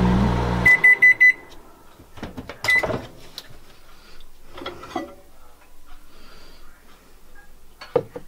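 Microwave oven finishing its cycle: its steady hum cuts off less than a second in, followed by four quick high beeps signalling that it is done. A single beep and a click follow a couple of seconds later, then light handling noises and a ceramic mug knocking down onto the counter near the end.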